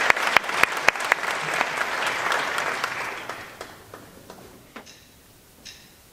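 Audience applauding, the clapping thinning and fading out about three and a half to four seconds in. It is followed by a hush broken by a few faint short high sounds.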